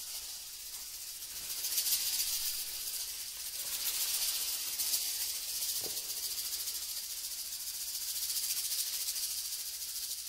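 Hand-shaken percussion rattle playing a continuous high, grainy hiss that swells and fades slowly, as the jazz accompaniment between poems.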